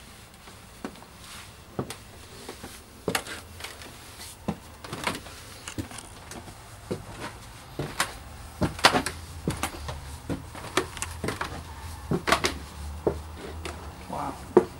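Footsteps going down a staircase and onto a debris-strewn floor: irregular knocks and scuffs, coming faster and louder in the second half.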